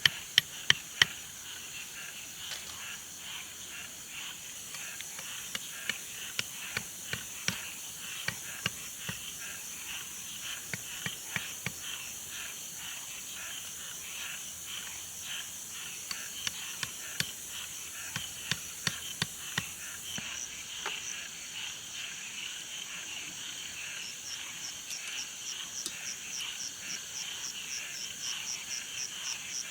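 Outdoor ambience of a steady hiss with chirping calls, broken by scattered sharp clicks and knocks. Near the end an even chirp pulses about three or four times a second.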